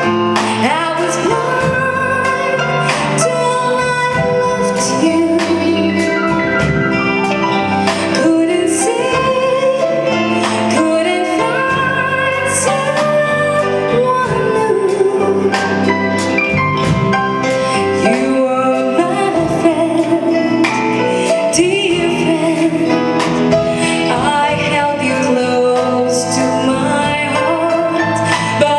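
Live band performing a medley of English duets: sung vocals over a band backing with regular drum hits.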